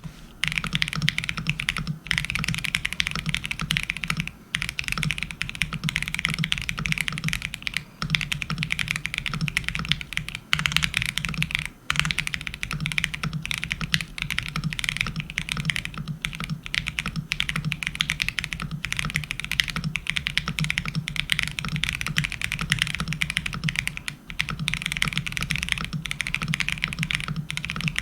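Fast continuous typing on a custom mechanical keyboard with Gateron Kangaroo Ink switches fitted with milky top housings, a deeper and more muted keystroke than the stock ink housings give. It pauses briefly a few times.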